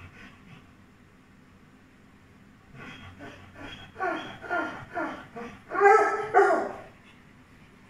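A puppy crying in a run of about ten short yelping whines, each dropping in pitch. They start faint about three seconds in, grow loud, and stop a second before the end. These are the cries of a puppy trapped in a narrow gap.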